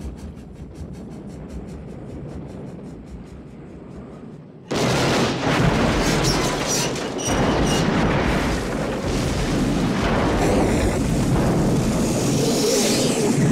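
Film sound effects of a steam locomotive crashing and exploding. There is a quieter stretch with a low background while it falls. About four and a half seconds in comes a sudden loud crash as it hits the ground, going straight into a long, continuous explosion that flares again near the end.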